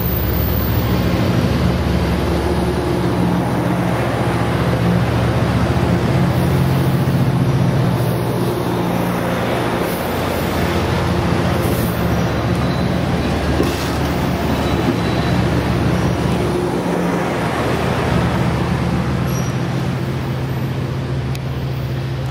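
Amtrak bilevel passenger cars rolling past close by: a steady rumble of wheels on rail with a low drone underneath, easing off slightly near the end as the cab car goes by.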